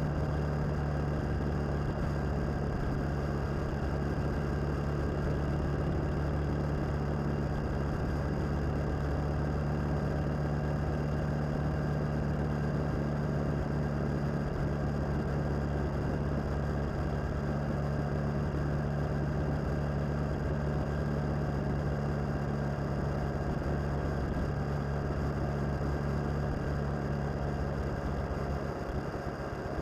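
Suzuki DL650 V-Strom's V-twin engine running at a steady cruising speed under way, with a constant low engine note over wind and road noise. The engine note eases a little near the end.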